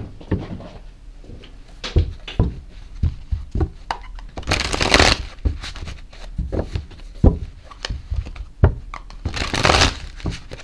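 A deck of tarot cards being shuffled by hand: scattered taps and knocks of cards against each other and the table, with two longer rustling riffles about four and nine seconds in.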